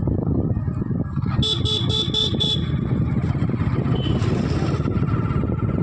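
Steady rumble and road noise of a moving vehicle. About a second and a half in, a horn beeps five quick times.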